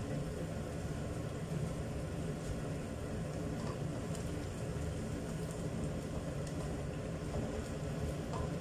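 Wok of jengkol stew cooking on the stove, heard as a steady low rumble. A few faint clicks come from a spatula stirring the pan.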